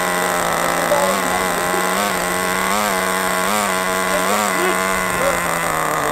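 Small two-stroke nitro RC car engines idling, with short, regular throttle blips about once a second.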